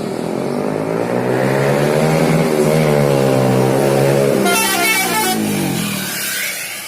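An intercity bus engine running loudly as the bus goes by, its pitch bending slightly. About four and a half seconds in, a high, warbling telolet horn sounds for about a second, then the sound fades.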